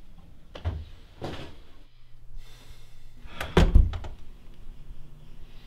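A door shutting with a heavy thump about three and a half seconds in, the loudest sound here; two lighter knocks come before it.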